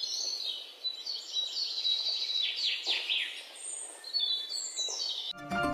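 Birds chirping: a run of high chirps and short downward-sliding whistles. Music cuts in suddenly near the end.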